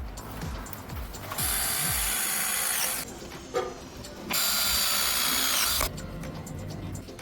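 A handheld power tool run twice in short bursts of about a second and a half each, its motor whine dropping in pitch as it stops each time.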